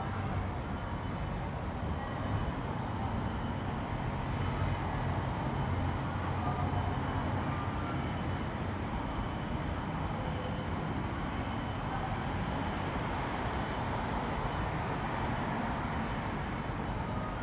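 Steady low rumble with an even hiss underneath: outdoor urban background noise, with no distinct event standing out.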